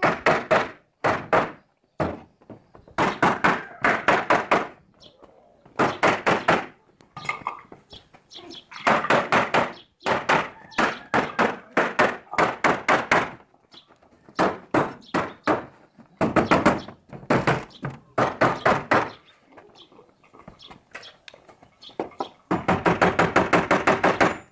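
Hammer striking a wood chisel, cutting the cracked wood out of a wooden door panel. Quick runs of sharp knocks, several a second, broken by short pauses.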